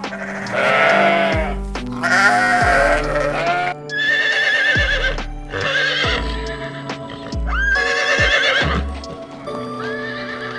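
Background music with a steady beat, with about four animal calls laid over it, each one to three seconds long and wavering in pitch.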